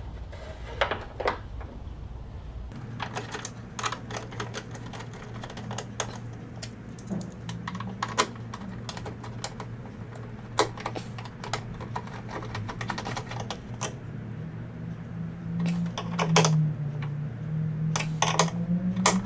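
Irregular light clicks and taps of a hook pick and wire against the sheet-metal inner panel of a 2004 Jeep Grand Cherokee hood as wire is fished through its holes, over a steady low hum that grows louder near the end.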